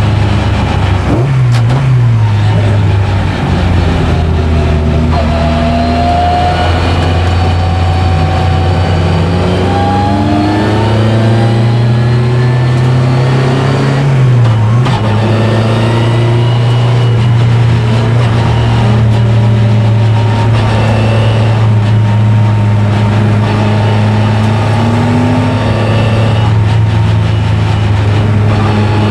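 Lotus Elan race car's four-cylinder Lotus-Ford Twin Cam engine, heard from inside the cabin, running hard on track. The revs climb over several seconds, dip briefly near the middle, then hold fairly steady.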